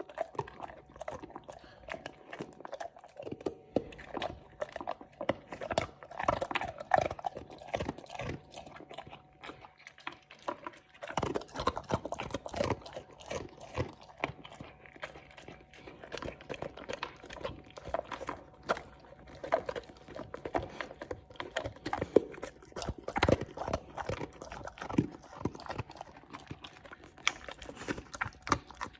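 An English mastiff crunching and chewing Milk-Bone dog biscuits, with a steady run of irregular hard crunches and wet chewing.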